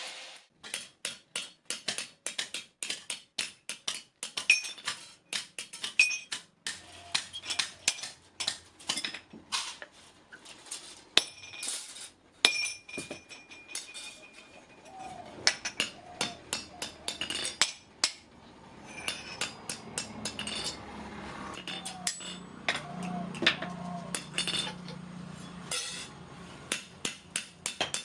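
Blacksmith's hammer striking iron on an anvil again and again, about two to three blows a second with short pauses, some blows leaving a bright metallic ring: hand forging of a spade blade.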